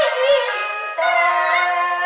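Peking opera aria music: a high, wavering melodic line that settles about a second in into a long held note.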